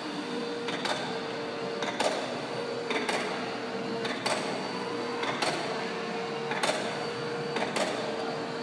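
Bungee trampoline in use as a child bounces: a sharp thump-creak from the mat, springs and bungee cords at each landing, about one bounce a second, with a steady hum between landings.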